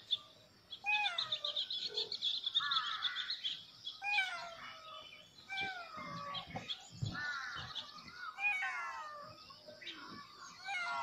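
Kittens meowing over and over: many short, high-pitched cries, each falling in pitch, overlapping and repeating without a break. A rapid high twittering runs for a couple of seconds near the start.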